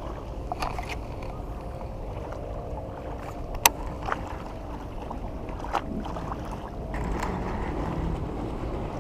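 Riverside water and wind noise with a faint steady hum. A few small sharp clicks sound over it, the loudest about three and a half seconds in.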